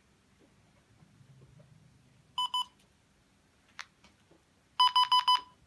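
XC Tracer Mini variometer beeping as it powers up after its red button is pressed. Two short beeps come about two and a half seconds in, then a single click, then four quick beeps near the end.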